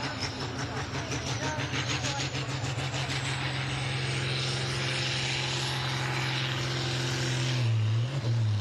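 Farm tractor's diesel engine running flat out under heavy load during a tractor pull, with a steady deep note. A faint high whine rises over the first few seconds, and the note wavers briefly near the end.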